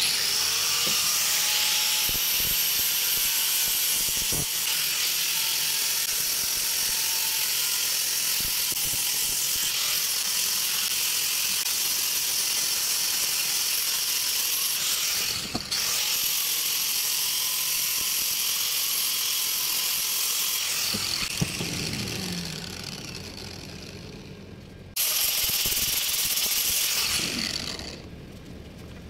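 Small angle grinder with an abrasive sanding disc running steadily at high pitch while sanding a wooden shovel blade. The sound fades out over a few seconds about three quarters of the way through, runs again briefly, and stops near the end.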